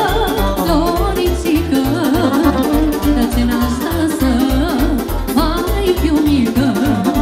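Live Romanian sârba folk dance music, amplified: a woman sings an ornamented melody into a microphone over a band keeping a fast, steady bass beat.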